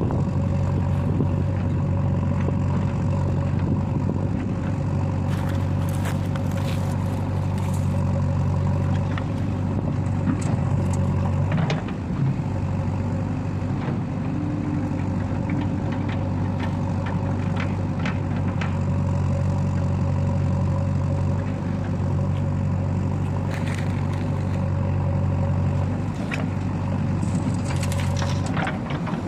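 Heavy diesel machine engine running at a steady speed, with occasional short clicks and knocks over it.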